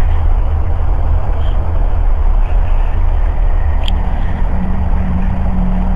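Strange, steady low rumbling coming from no clear direction, captured on a cellphone and boosted with a compressor/limiter. A steady low hum joins about four seconds in.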